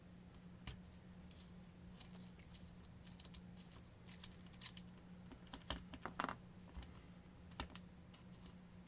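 Faint clicks and light taps of small parts being handled, loudest in a short cluster about six seconds in, over a low steady hum.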